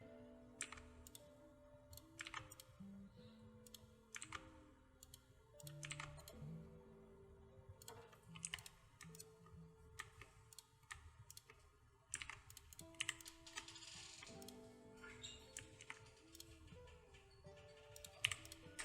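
Computer keyboard keys and mouse clicking irregularly over faint background music of soft held notes that step from pitch to pitch.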